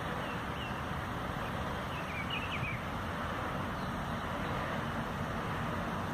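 Steady low rumble, like distant traffic, with a few short high bird chirps, a small cluster of them about two to two and a half seconds in.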